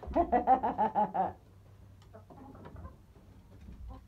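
Chicken squawking in a quick run of about seven short calls during the first second or so, then much quieter.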